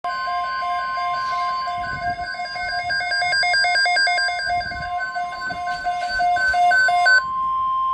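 Steady single-pitch weather alert tone, the long attention tone that opens an emergency weather broadcast. It is overlaid with a rapid pattern of pulsing, stepping beeping notes that stops about seven seconds in, while the alert tone holds on.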